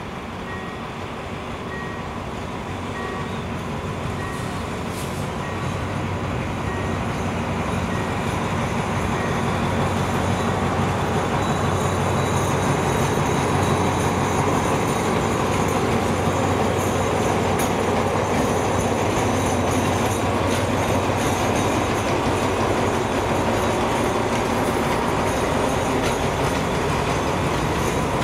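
Diesel locomotive hauling a passenger train past, its engine running with a steady low hum under the rumble of wheels on rail. The sound grows louder as the train approaches and stays loud as the coaches roll by.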